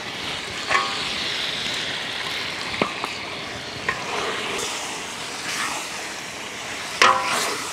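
Wok of fish paste, tamarind, peas and chilies cooking in liquid, giving a steady hiss.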